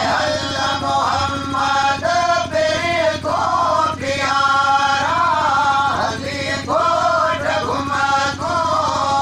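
Men's voices chanting together in long phrases that rise and fall, with short breaks between them, over a steady low hum.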